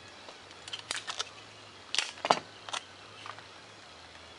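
Foam-board model jet and clear tape being handled on a work table: a string of short clicks and crackles, the loudest two close together about two seconds in.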